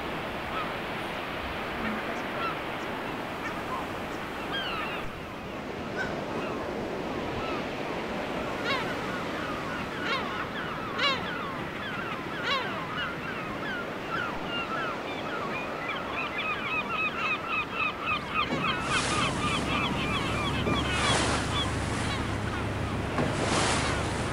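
Seabird colony calling: gulls, guillemots, razorbills and kittiwakes giving short calls over the wash of the sea, with a fast run of repeated calls a few seconds from the end. Shortly before the end a boat engine's low hum joins underneath.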